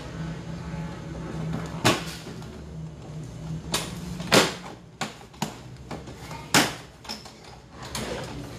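Plastic side body panel of a Yamaha NVX scooter being pulled and worked loose by hand, giving several sharp plastic snaps and knocks as its clips and tabs shift. The loudest snap comes about halfway through.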